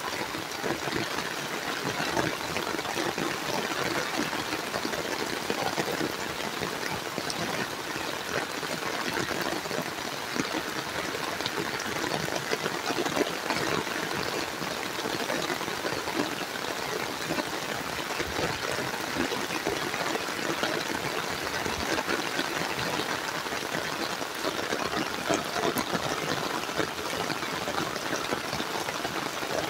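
Heavy rain falling steadily: a dense, even hiss of rain that holds unchanged throughout.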